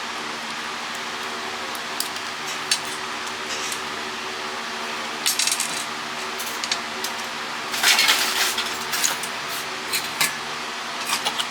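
Small hard plastic and metal parts clicking and clattering in short clusters as a cordless phone is pulled apart by hand, the loudest rattle a little before the last third, over a steady background hum.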